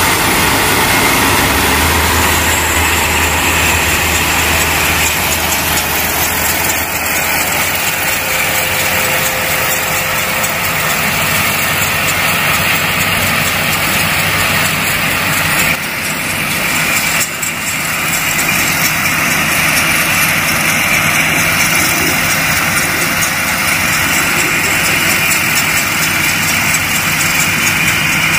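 Kubota ER112 combine harvester's engine running steadily. There are two brief dips in level a little past halfway.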